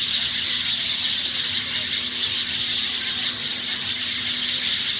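A flock of sparrows chirping all at once in a dense, continuous chorus.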